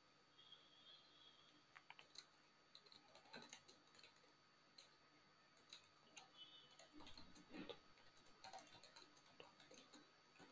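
Faint, irregular typing on a computer keyboard: scattered soft key clicks at a low level.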